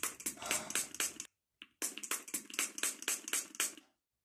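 A rapid, even run of sharp taps or clicks, about five a second. It breaks off a little over a second in, resumes about half a second later and stops shortly before the end.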